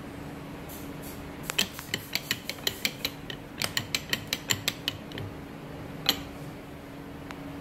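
Run of quick metal clicks, about six a second with a short break partway, as a bolt on the gang punch is tightened during reassembly, then one louder single click.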